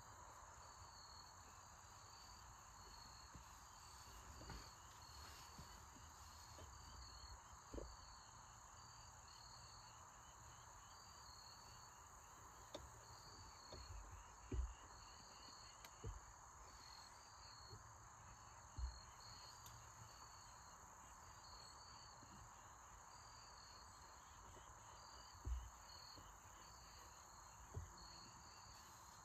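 Faint outdoor quiet with crickets chirping in a slow, regular pulse over a steady hiss. A handful of soft low thumps break in now and then.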